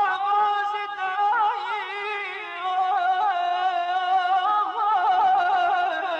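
Solo voice singing in Persian classical vocal style (avaz): long held notes with wavering, ornamented runs.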